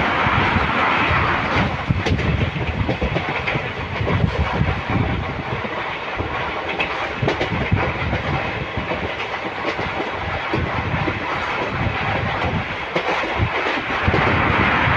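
Indian Railways express passenger train running at speed, heard at an open coach window: a steady rumble and rush of wind with rail clatter. The rush grows louder for a couple of seconds near the start and again near the end.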